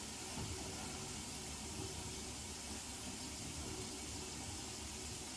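Tap water running steadily into a bathroom sink, a test run of the newly connected drain pipe for leaks.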